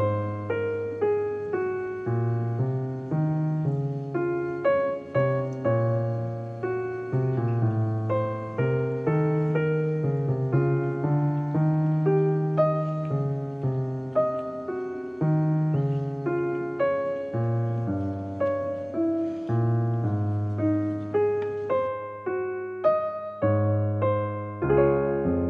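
Background music: a piano playing a steady run of notes over a low bass line.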